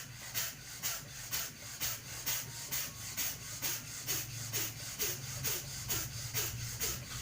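A person breathing forcefully through the nose in a fast pumping rhythm, about two sharp breaths a second, like working a bicycle pump: a yogic pumping-breath exercise.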